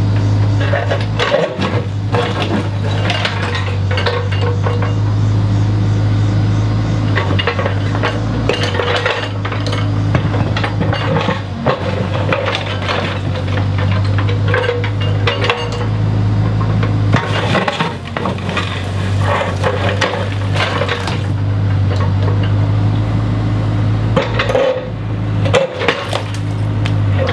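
Diesel engine of a compact construction machine running steadily while it pulls down a brick wall, with repeated clatter and clinking of bricks and masonry chunks breaking and falling.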